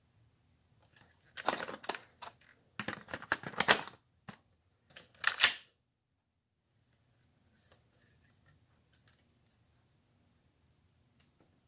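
Plastic clicking and rattling from a Lego-brick toy gun being handled and worked, in three quick clusters of clicks in the first six seconds, then only a few faint ticks.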